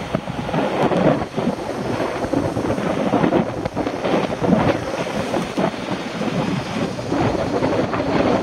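Wind buffeting the microphone of a camera on a moving bicycle, a loud gusting rumble over the road noise.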